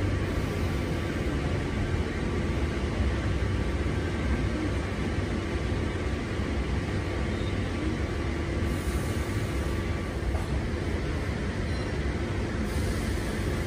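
Steady low rumble inside the carriage of a chopper-controlled Sydney C set double-deck electric train as it rolls slowly along a platform and draws to a stop.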